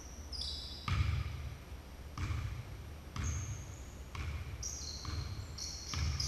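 Basketball bouncing on a hardwood gym floor as it is dribbled, with thuds roughly once a second. Short high squeaks of sneakers on the hardwood come in between, more of them near the end.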